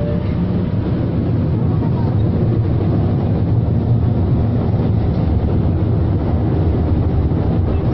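Beijing subway train running between stations, heard inside a crowded car: a steady low rumble of the wheels and running gear that grows a little louder over the first few seconds.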